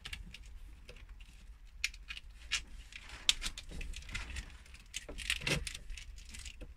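Flexible corrugated plastic conduit being handled and fed along a panel: scattered clicks, rattles and scrapes as the ribbed tubing bends and rubs.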